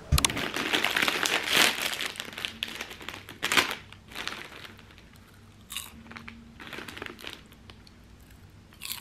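A popcorn bag crinkling as a hand rummages inside it. Dense and loud for the first few seconds, then a few short scattered rustles.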